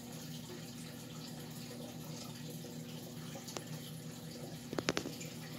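Steady running and trickling water from a reef aquarium's circulation, with a faint low hum. One light click about two thirds of the way in and a quick cluster of sharper clicks near the end.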